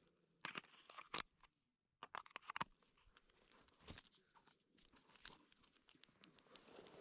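Faint crinkling, crunching and clicking noises, in two louder clusters within the first three seconds, then softer scattered clicks.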